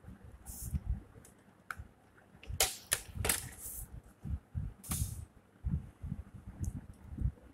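Plastic drawing instruments (a set square and ruler) knocking and sliding on the drawing sheet, with a few sharp clicks a little under three seconds in and again about five seconds in. Brief scratches of a pencil drawing lines.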